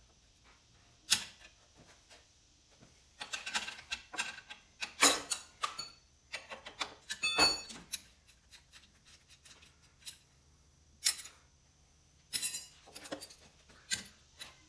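Metal clinks, taps and rattles of steel hydraulic hardlines and wrenches being handled and fitted, in scattered bursts with short pauses between. One strike a little after halfway rings briefly like struck steel.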